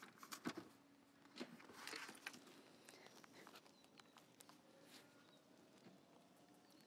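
Near silence: faint outdoor ambience, with a few faint clicks and knocks in the first two seconds.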